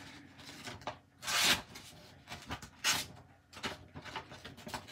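Sheet of paper being sliced with a very sharp folding knife blade (Des Horn Imvubu): short hissing slicing strokes. The two strongest come about a second and a half apart, with lighter paper rustles between.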